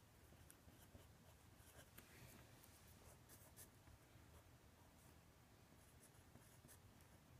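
Faint scratching of a felt-tip marker writing on paper, in short irregular strokes.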